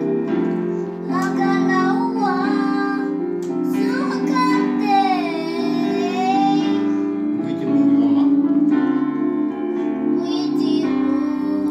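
Electronic keyboard playing held chords, with a high voice singing over it in wavering, gliding phrases. The singing falls away in the second half, leaving the keyboard chords.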